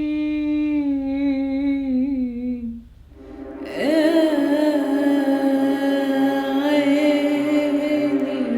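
A woman's voice singing long wordless held notes. The first note sinks slightly in pitch and breaks off about three seconds in. A fuller second note begins a moment later and wavers gently over a faint low repeating pulse.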